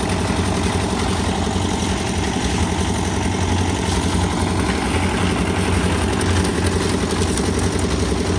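An engine running steadily at a constant speed, with a low hum and a rapid, even chugging.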